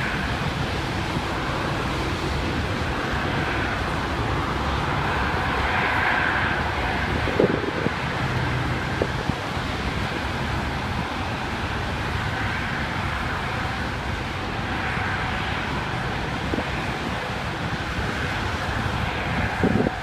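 Steady low rumble of distant engine noise with wind on the microphone, and a few faint knocks.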